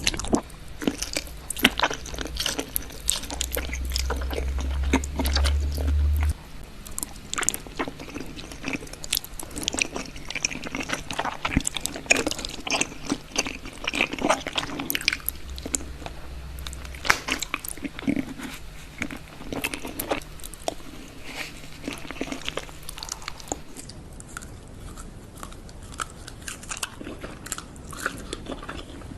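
Close-up crunching, biting and chewing of crisp food, a dense run of sharp irregular crunches. A low hum sits under the crunches from about three to six seconds in.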